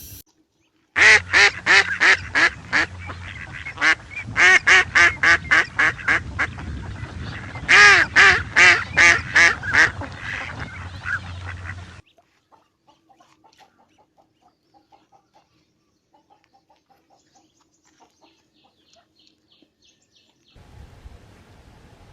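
Waterfowl calling: three quick runs of loud, evenly paced calls, about three a second, over the first half. Then only faint scattered clicks and weak calls.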